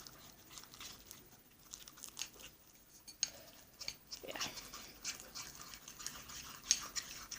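Faint, irregular sticky crackling and squelching of stiff homemade detergent slime being stirred and worked, with many small clicks.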